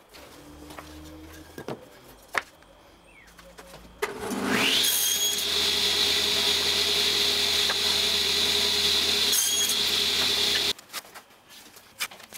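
A few light knocks, then about four seconds in a table saw starts with a rising whine and runs steadily while a wooden piece is crosscut on a sled. The sound stops abruptly after about six seconds.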